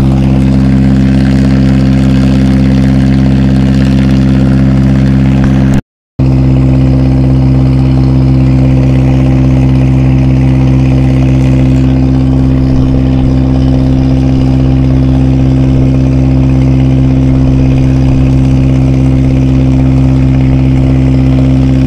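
Small boat's outboard motor idling with a steady low hum. The sound drops to silence for a moment about six seconds in, then the same hum resumes.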